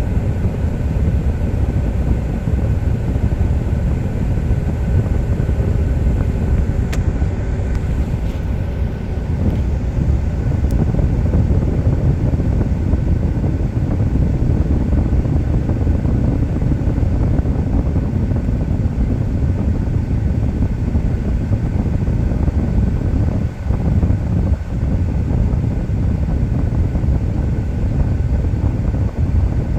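2013 Ford truck running with a steady, loud low rumble; this is the truck after a rear main seal repair that left it losing oil pressure.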